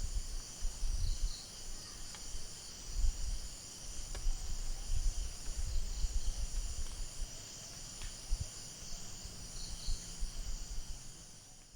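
Night insect chorus of crickets, a steady high chirring in several bands, over a low uneven rumble, with a few faint clicks. It fades out near the end.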